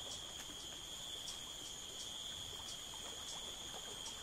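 Steady high-pitched insect chorus, a continuous unbroken trill, with faint scattered ticks.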